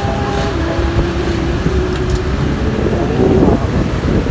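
A vehicle running along a road with steady road rumble and wind buffeting the microphone.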